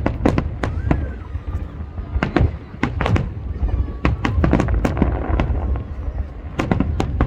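Fireworks exploding in an irregular barrage, many sharp cracks and bangs a second over a continuous low rumble.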